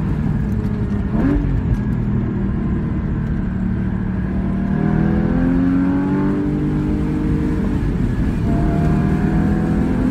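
Porsche Cayman GT4's flat-six engine heard from inside the cabin under load on track, its pitch climbing as the car accelerates through the middle stretch, then holding and rising again near the end.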